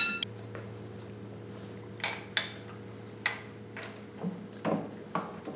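Metal hand tools and engine parts clinking and knocking now and then during a small-block V8 teardown, a handful of sharp knocks over a steady low hum.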